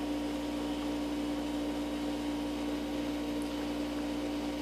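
Steady low hum over a constant hiss: room tone with no other events.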